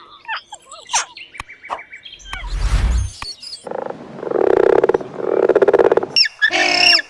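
A series of animal calls: short chirps and clicks, then two long, low, pulsing calls, then a loud squawk near the end.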